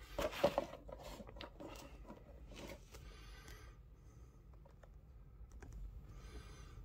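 Small plastic action figure being handled and set down on a tabletop: a quick cluster of light clicks and taps at the start, then scattered faint clicks as fingers adjust it, with two soft hissy swells.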